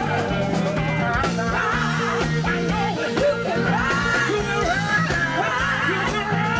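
Live gospel-soul band in full swing: several voices singing and shouting together into microphones over a steady beat and bass line.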